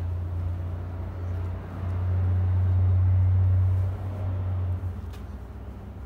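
Steady low rumble of a motor vehicle engine running, strongest in the middle and dying away about five seconds in.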